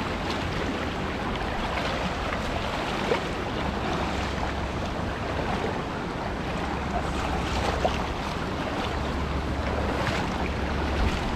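Steady rush of flowing water, with wind buffeting the microphone as a low rumble that grows heavier a few seconds in.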